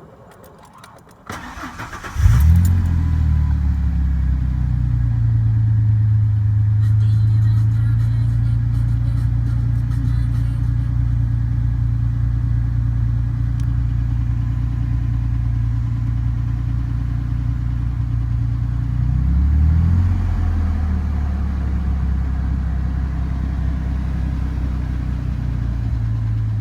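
A 1998 Ford F-150's 4.2-litre V6 cranks and catches about two seconds in, flares up, then settles to a steady idle. It gives one brief rev about two-thirds of the way through.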